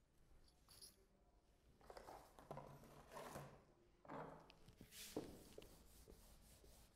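Near silence: room tone with faint rustling and a few soft knocks.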